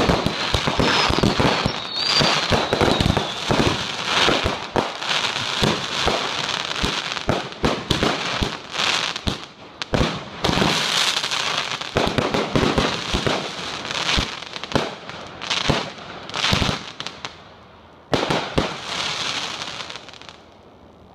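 Fireworks going off in rapid succession, a dense run of bangs and crackling with a whistle in the first couple of seconds. The bangs thin out after about seventeen seconds and die away near the end.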